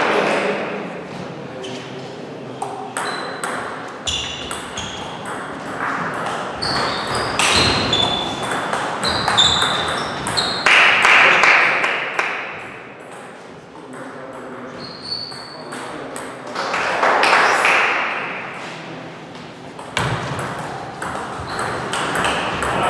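Table tennis balls clicking off paddles and tables in quick rallies, several tables at once, each hit with a short high ping. Loud voices break in a few times between points.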